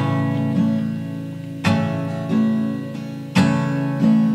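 Music: slow acoustic guitar, a chord strummed about every second and a half and left to ring, with lighter strokes in between.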